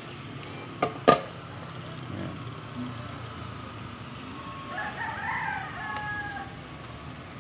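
Two sharp knocks about a second in as a computer power supply's fan and wires are handled. About five seconds in comes a distant bird call that rises then falls in pitch and lasts about a second and a half.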